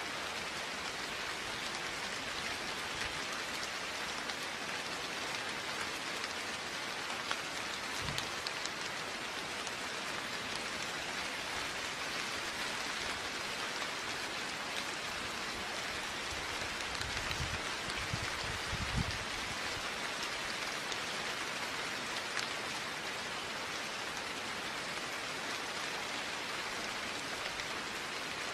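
Steady rain falling, with a dense patter of drops on a surface. A few dull low thumps come about a third of the way in and again around the middle.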